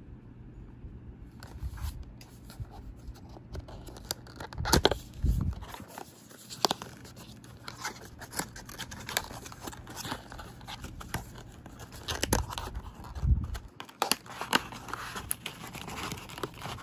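Small cardboard product box being handled and opened by hand: scraping and rustling of the cardboard with scattered clicks, and a few louder dull knocks about five seconds in and again around twelve to thirteen seconds in.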